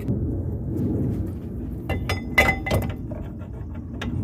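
Metal parts clinking: a cluster of sharp, ringing clinks about two seconds in as the brake caliper bracket and its bolts and washer are handled, over a steady low rumble.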